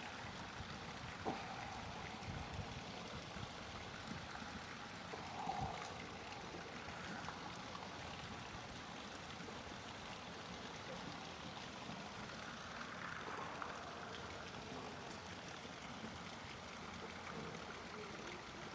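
Faint, steady rushing background noise, like room hiss or air noise, with a couple of soft, faint sounds along the way.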